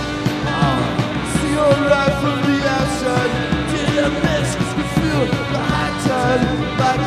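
Rock band playing a punk-style song live, with a steady beat.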